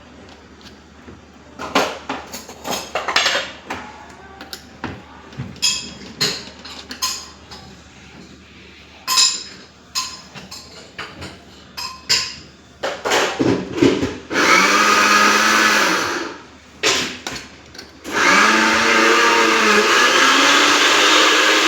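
A series of clicks and knocks, like parts being handled and pressed. Then a small electric motor starts with a rising pitch, runs for about a second and a half and stops, and starts again a couple of seconds later and keeps running steadily.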